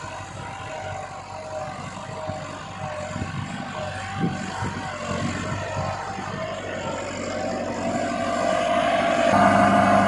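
Massey Ferguson 375 tractor's diesel engine pulling hard as it drags a 13-tine cultivator set to full depth (lever fully down), a steady labouring drone under heavy load. It grows steadily louder as the tractor approaches, loudest near the end.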